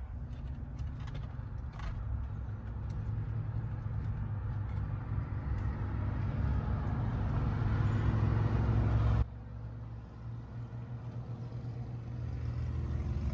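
A motor vehicle's engine running nearby, a low rumble that grows steadily louder, then cuts off suddenly about nine seconds in and starts building again near the end.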